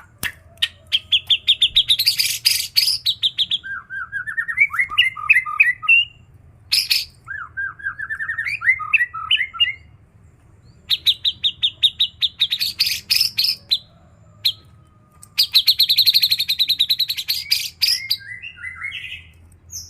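White-rumped shama (murai batu) singing: bouts of fast repeated high notes alternating with chattering, up-and-down phrases, a song filled with mimicked calls of other birds such as the grey-cheeked bulbul (cucak jenggot).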